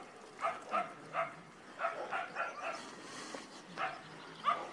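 A dog barking repeatedly: a string of short, sharp barks, some in quick runs of two or three.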